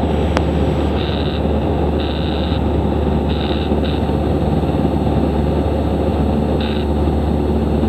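Cessna 172 Skyhawk's four-cylinder Lycoming engine and propeller running steadily at pattern power, heard inside the cabin as an even drone. A faint higher hiss comes and goes about four times.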